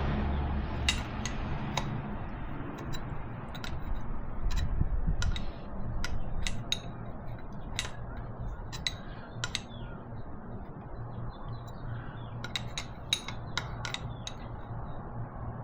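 Irregular metallic clicks and clinks of a wrench working the nuts on a Kubota V2203 diesel engine, over a low hum.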